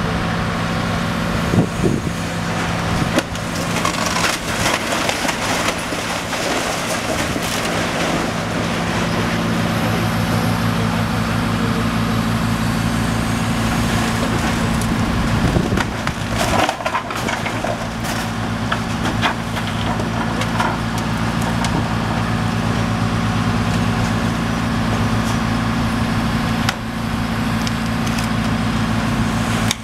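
Diesel engine of a long-reach demolition excavator running steadily, under the crunching and cracking of brick and charred timber as its attachment tears into the building. A few sharp knocks of falling debris stand out.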